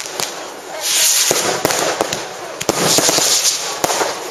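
Fireworks going off: a rapid run of sharp bangs and cracks over a loud hissing crackle that swells and fades.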